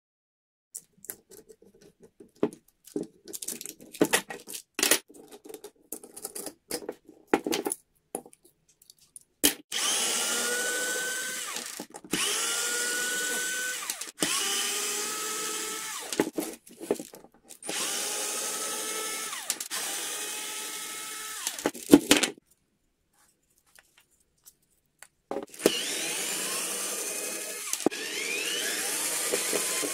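Several seconds of light clicks and knocks from parts being handled, then a cordless drill driving screws into wood in a series of runs of about two seconds each, the motor's pitch rising as each run starts.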